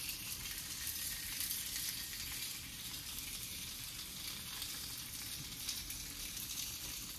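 Egg frying in chili oil on rice paper in a nonstick pan: a steady sizzle.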